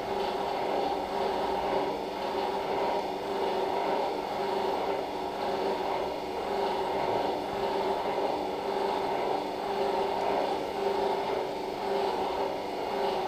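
Steady mechanical hum of operating-room equipment, with a constant low tone and no change in level.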